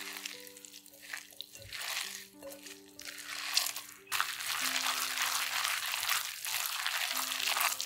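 Hand mixing shredded zucchini, carrot and enoki mushrooms with egg in a glass bowl, a rustling, squishing noise that comes in short bouts at first and becomes louder and continuous about four seconds in. Soft background music with held notes plays underneath.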